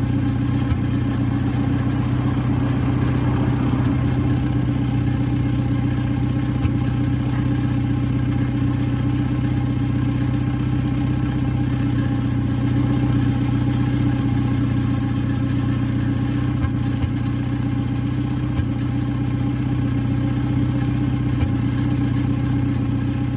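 Older car's engine idling steadily at an even pitch, with no revving.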